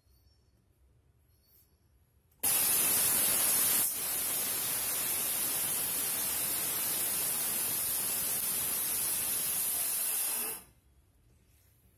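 A loud, steady hiss of noise with no pitch to it, switching on at full level about two and a half seconds in, dipping slightly a second and a half later, and cutting off abruptly about ten and a half seconds in.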